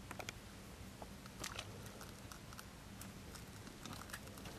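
Faint scattered clicks and rustles as a man pushes through willow branches while handling a fishing rod and spinning reel, with a few sharper clicks about a second apart, over a steady low hum.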